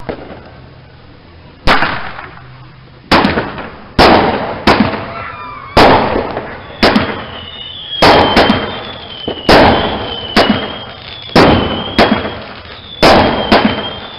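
Fireworks going off in a rapid string of sharp bangs, about one a second, each trailing off with crackle, with thin whistling tones between the later shots.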